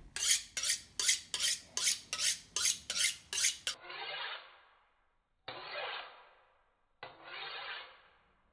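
Kitchen knife being honed on a sharpening steel, blade scraping along the rod. About a dozen quick strokes come in the first three and a half seconds, then three slower, drawn-out strokes about a second and a half apart.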